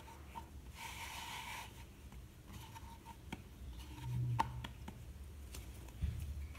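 Fingers pressing and spreading a ball of wheat dough on a floured wooden board: faint soft rubbing with a few light taps.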